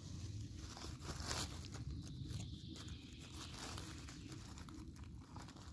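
Footsteps crunching and rustling through leaf litter and twigs on the forest floor, a faint, irregular crackle.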